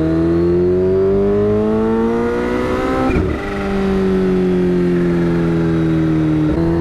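Kawasaki Ninja H2's supercharged inline-four through a Brock's aftermarket exhaust, rising in pitch under throttle. About three seconds in there is a short break and the pitch drops, as on an upshift, and the engine note then eases slowly down.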